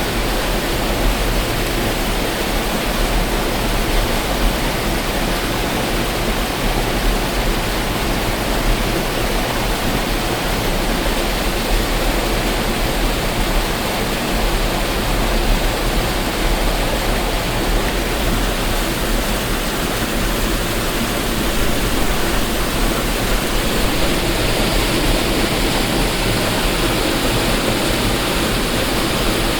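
Waterfall: water falling and splashing in a steady, loud rush.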